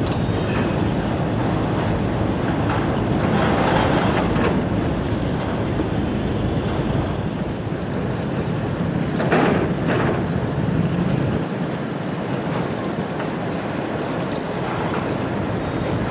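Steady rumble and hiss of harbour and vehicle traffic, with two brief hissing surges about four seconds and nine and a half seconds in.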